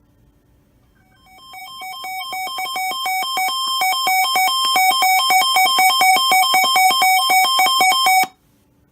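Weather radio receiver's alert alarm: a rapid electronic beeping that alternates between two pitches, swelling louder over its first few seconds and then cutting off suddenly near the end. It signals that a warning broadcast is coming in.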